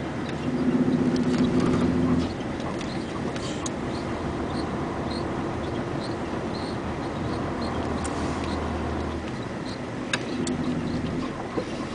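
Vehicle engine running while driving, heard from inside the cab. Its note swells louder for about two seconds near the start, then settles to a steadier hum, with light ticks and rattles throughout.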